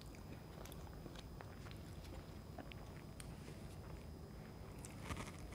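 Faint close-miked eating of a vanilla cupcake: soft chewing and small mouth clicks and crackles, with a brief louder rustle about five seconds in.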